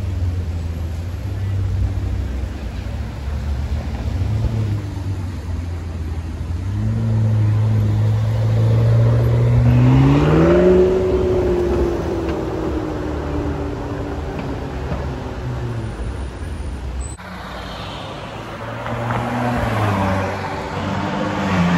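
A McLaren supercar's twin-turbo V8 rumbling at low speed, then revving up with a rising pitch as it pulls away. After a sudden break, a Ferrari's engine rises again as it accelerates past.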